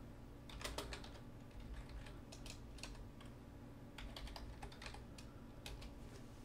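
Faint computer keyboard typing: a run of scattered, irregular keystrokes.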